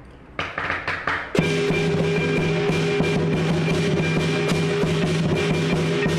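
Lion dance percussion: a few separate drum and cymbal strikes, then about a second and a half in the full beat starts, loud and dense, with a steady ringing tone underneath.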